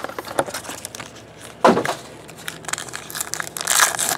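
Foil trading-card pack wrapper crinkling and tearing as it is peeled open, with small handling clicks. One louder knock comes about a second and a half in.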